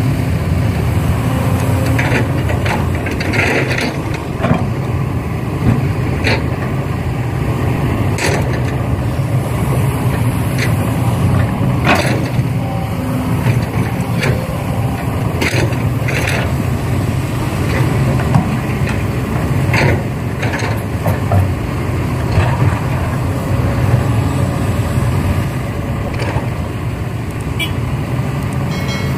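Steady low rumble of a running engine, with irregular sharp clanks and knocks every second or two.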